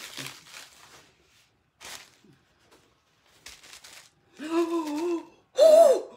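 Paper and bubble-wrap packing crumpling in short rustles as a package is unwrapped, then a woman's wordless vocal sounds: a short wavering hum, followed near the end by a loud rising-and-falling 'ooh'.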